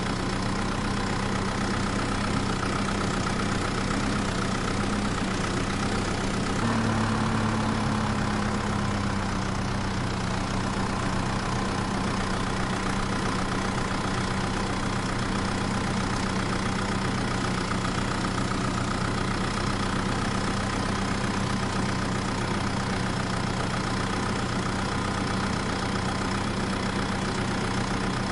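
Engine idling steadily, with a short rise in pitch about seven seconds in that settles back within a couple of seconds.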